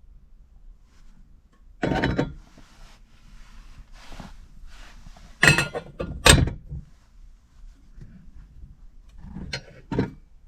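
A series of knocks and thumps, as of things being handled or shut: one thump about two seconds in, two sharp, loud knocks around the middle, and two more near the end, with faint rustling between.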